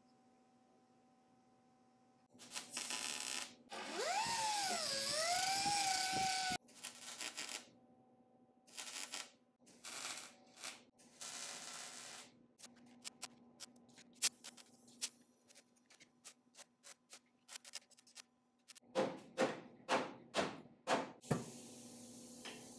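Welder tack-welding sheet-steel patch panels, crackling in short bursts of about a second each with scattered sharp clicks between them. Earlier, a power tool's motor spins up, dips under load and runs on for a couple of seconds. Near the end there is a quick run of about seven knocks, then a steady hiss.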